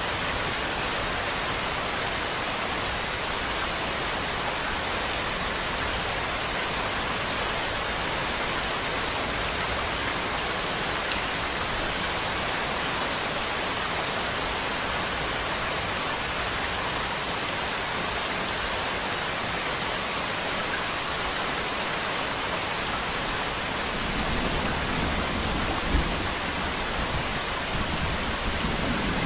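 Steady rainfall, an even hiss of drops on surfaces. Near the end a low rumble joins in, with one sharp knock.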